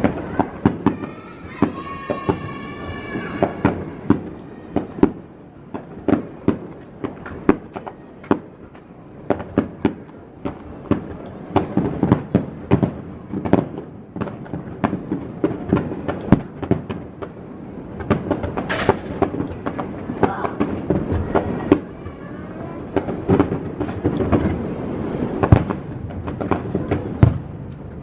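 Aerial fireworks going off in quick succession: many sharp bangs and crackles over a continuous rumble.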